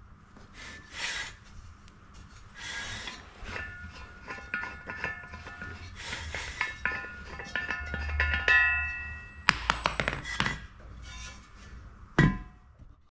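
Knocks, clinks and scrapes of a small steel propane gas cylinder being gripped, turned and tipped on a wooden bench. A sharp thunk comes near the end.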